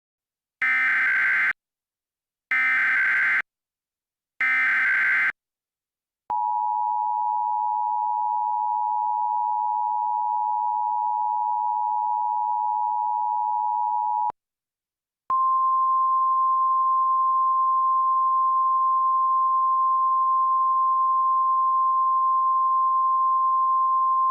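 Emergency Alert System alert tones. First come three short screeching data bursts of the SAME header. Next the two-tone attention signal (853 and 960 Hz together) holds steady for about eight seconds. After a one-second gap a single steady 1050 Hz warning tone starts and holds.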